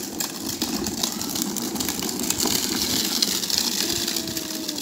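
Hard plastic wheels of a child's ride-on toy car rolling over rough concrete and dirt as it is pushed along: a steady rattle.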